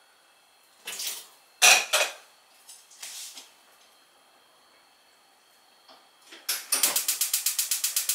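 Chopsticks clinking and scraping against a frying pan of chicken in sauce: a few separate clinks in the first seconds, then a fast run of taps, about ten a second, near the end as the chicken is stirred.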